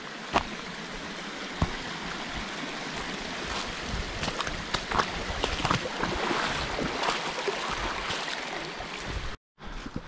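Shallow creek running over rocks, with the hiker's footsteps crunching on stones and dry leaves. The sound cuts off suddenly about nine seconds in, then quieter footsteps on a dry trail follow.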